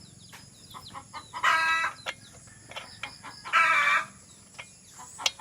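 Chicken calling loudly twice, each call about half a second long and about two seconds apart, with faint small bird chirps between the calls.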